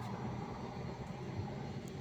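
Steady low background rumble with a faint hiss, with no distinct event standing out.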